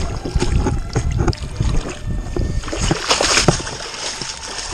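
A young alligator gar thrashing in shallow, muddy water as it is hauled to the bank in a rope noose, with a burst of splashing about three seconds in. Before that, a low rumble and knocks from handling close to the body-worn camera.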